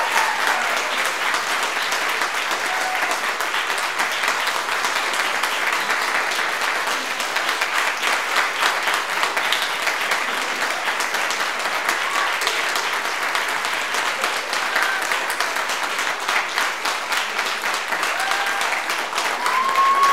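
Audience applauding steadily; a few whoops and cheers come in near the end.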